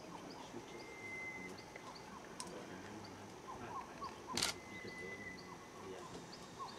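Quiet rainforest background of many small repeated chirps and calls, with a thin high whistling tone that comes and goes. One sharp click about four seconds in stands out as the loudest sound.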